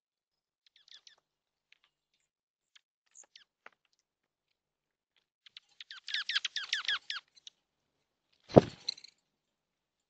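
Small songbird calling: a few scattered chirps, then a quick run of about ten down-slurred notes about six seconds in. A sharp thump near the end is the loudest sound.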